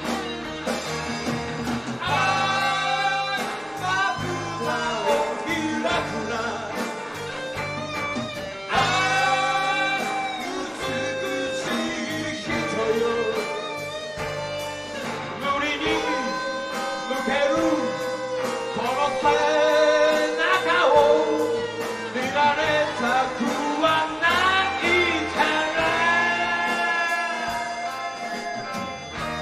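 Live rock band playing a slow ballad: electric guitars, bass and drums, with a wavering lead melody line over them.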